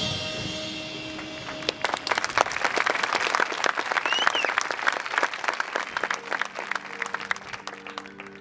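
A marching band's sustained brass chord dies away, then the crowd in the stands applauds, with a short whistle about four seconds in. Soft held notes from the band come in near the end.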